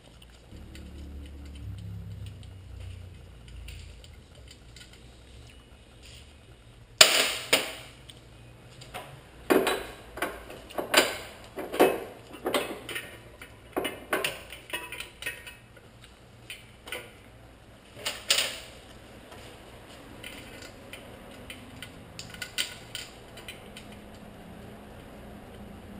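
Metal clanks and clinks as a flex plate holding tool is fitted against the engine's flex plate under the car. A low rumble at first, then an uneven run of sharp knocks in the middle, the loudest at the start of the run, and a few lighter clicks near the end.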